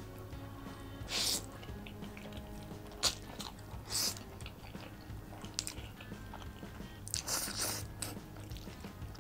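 Close-miked eating: a person slurping up saucy pasta noodles and chewing, with short wet slurps about a second in and around 3 and 4 seconds, and a longer slurp near the end. Soft background music runs underneath.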